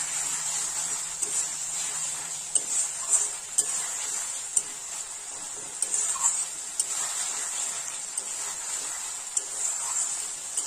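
Metal spatula stirring and scraping a tomato-and-onion masala around a steel kadai while it fries down, with a steady sizzle and many sharp clicks of the spatula against the pan.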